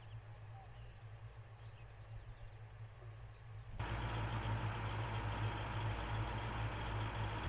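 Faint low hum, then about four seconds in a sudden jump to the steady running of Bradley fighting vehicles' V8 diesel engines, a low drone with a noisy rush on top.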